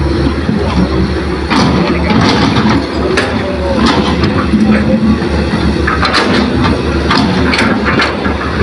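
Heavy diesel engine of an excavator or dump truck running steadily under load, with several short knocks and rattles over the top.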